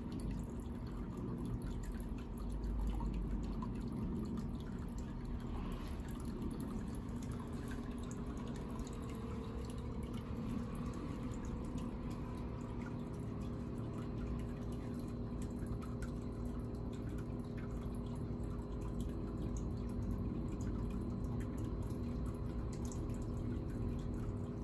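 Water dripping and trickling steadily into a water-filled tub, with a faint steady hum underneath.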